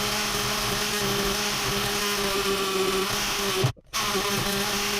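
Dremel rotary tool with a carbide cutter running at high speed, grinding through a metal support bar bedded in plaster. It is a steady whine that stops briefly a little under four seconds in, then starts again.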